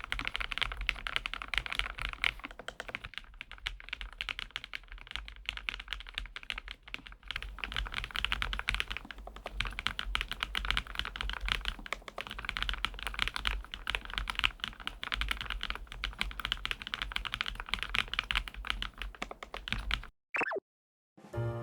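Continuous fast typing on a Lofree Flow Lite low-profile mechanical keyboard, a dense run of keystroke clacks that stops about 20 seconds in.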